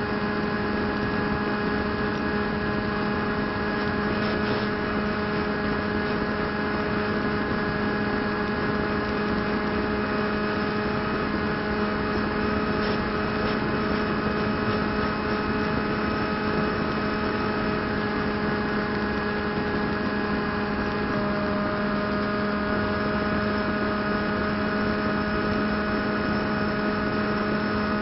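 Brushless electric motor (2212 size) spinning a 7x4 APC propeller on a flying-wing RC plane in flight, heard from the plane's onboard camera: a steady whine over rushing air noise. The pitch shifts slightly about three quarters of the way through.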